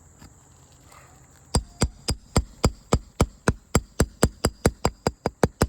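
Roofing hammer striking a nail puller to draw nails from a 3-tab asphalt shingle: a run of about twenty quick, ringing metal taps, about four a second, starting about a second and a half in and speeding up slightly.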